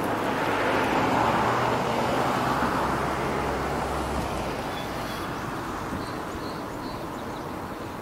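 A road vehicle passing: its noise swells to a peak about a second in and fades away over the next few seconds, with a low engine hum underneath. A few faint short bird chirps come near the middle.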